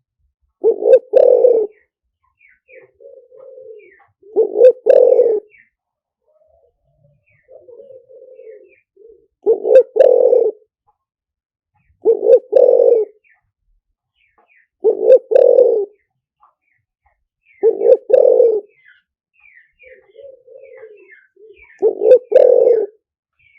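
Spotted dove cooing: seven loud, low two-part coo phrases repeated every few seconds, with softer cooing between them and faint high chirps of small birds. It is a decoy call used to lure wild spotted doves to a trap.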